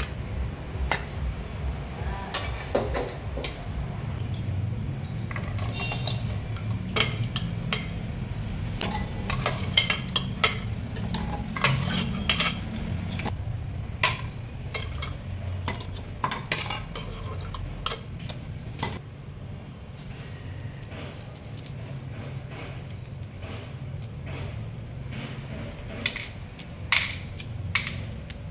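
Metal kitchen clatter: a stainless steel pressure cooker's lid and pot clinking and knocking, with many scattered short clicks over a low steady hum.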